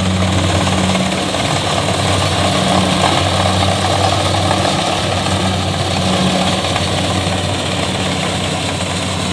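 Kubota combine harvester's diesel engine and threshing mechanism running steadily under load while cutting rice: a continuous loud drone with a low hum, easing slightly as the machine moves off.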